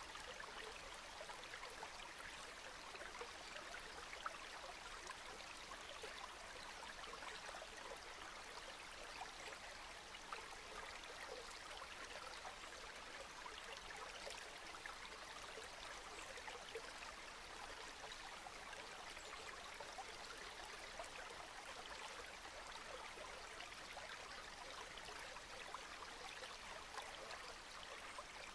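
Steady rain falling, a soft even hiss of many drops with faint scattered patters and no thunder.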